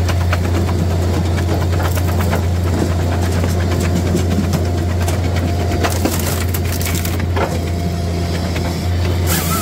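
Japa 405 firewood processor splitting a round: wood cracking and splintering as the split pieces are forced through the wedge, over the steady low drone of the running machine. Near the end a steady higher whine starts.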